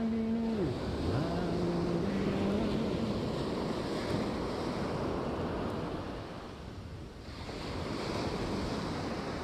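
Ocean surf breaking and washing up a sandy beach, a steady rushing wash that ebbs about six seconds in and swells again as the next wave runs up. Two brief steady low tones sound over it in the first three seconds.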